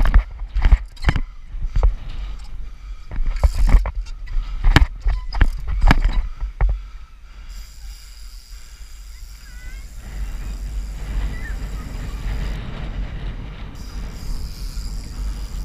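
Street trials bicycle hopping on a stone ledge: a quick run of sharp knocks as the tyres hit and land on the stone over the first six seconds or so. After that comes a steady rolling noise as the bike rides across block paving.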